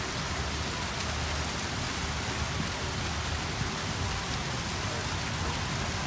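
Fountain jet and small waterfalls splashing into a pond: a steady rush of falling water.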